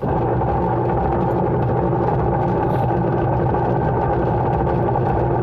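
Micromatic twin-tub washing machine running on its wash cycle: a loud, steady hum with a rough grinding edge, "very noisy, like a grinder". The noise comes from the wash gearbox, which the repairman judges worn and due for replacement.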